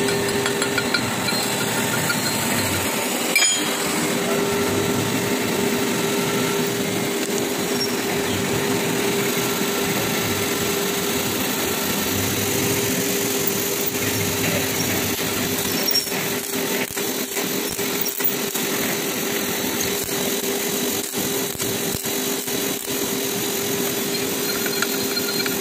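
A workshop machine running with a steady hum and a held tone. About three seconds in there is a single knock, and in the second half there are irregular clicks and scrapes of hand tools working on a steel clutch plate pack.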